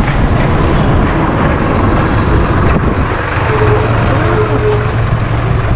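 Wind rumbling and buffeting on a GoPro Hero 8 Black's built-in microphone, mixed with road traffic. A vehicle engine's steady low hum joins about three seconds in.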